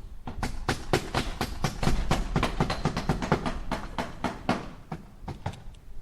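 Hammer striking nails in a quick, rapid run of blows, about six a second, then a short pause and two more blows near the end.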